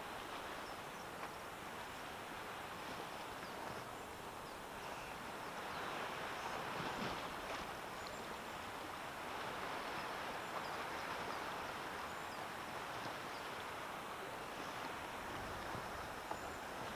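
Sea water lapping and rippling against a float tube, a steady wash that swells twice in the middle.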